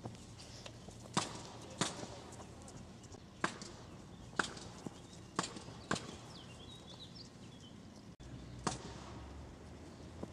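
A run of sharp knocks, about seven spread unevenly, as a person's feet and hands strike a railing during parkour vaults and balancing. A bird chirps briefly in the middle.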